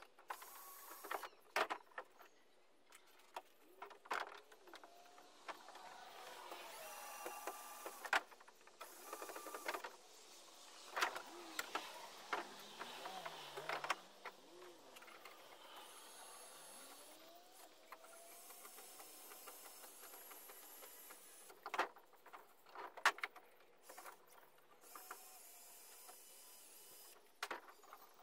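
Faint, intermittent knocks and clicks with short runs of a small power tool, from work on the canoe's gunwale; the loudest knocks come about eleven seconds in and again around twenty-two to twenty-three seconds in.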